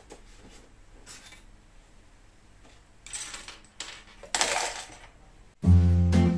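Small objects being handled on a desk, with a short scrape or clatter about three seconds in and a louder one about four and a half seconds in. Acoustic guitar background music starts suddenly near the end.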